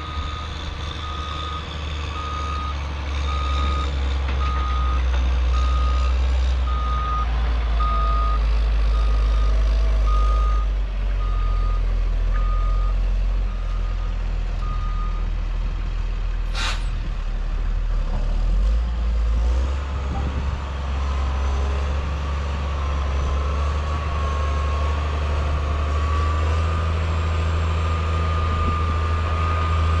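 Caterpillar 120H motor grader running while it reverses, its backup alarm beeping evenly for the first half. The beeping stops, a single brief sharp sound comes a little later, and then the engine note changes as the machine moves off, with a whine that rises in pitch.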